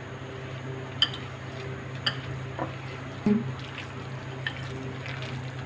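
A hand squishing and kneading a wet batter of ground lentil paste and rice flour in a glass bowl, with faint squelching, a few light clicks and a short thump a little past three seconds in, over a steady low hum.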